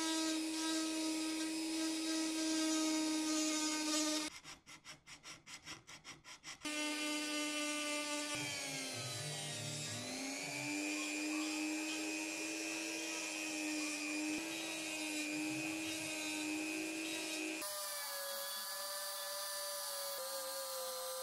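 Flexible-shaft rotary tool running with a steady whine while sanding plywood with a small sanding drum. About four seconds in the whine drops out for two seconds, leaving a fast ticking, and a little later the pitch sags and recovers as the tool loads down. Near the end the whine shifts higher.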